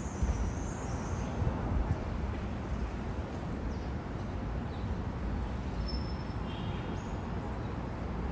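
New York City subway train rolling away along elevated steel tracks: a steady low rumble, with a few faint high chirps over it.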